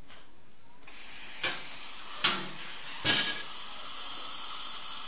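Dental equipment hissing steadily, starting about a second in, with three brief louder spurts.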